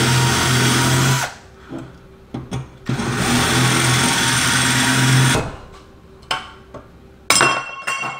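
Power drill running in two bursts, taking apart a motorcycle muffler, followed by a few light knocks and ringing metal clinks near the end.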